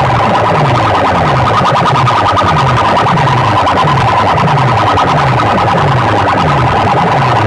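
Heavily distorted electronic competition track played loud through a sound-system rig: a low falling bass sweep repeats about every half second under a steady, siren-like tone.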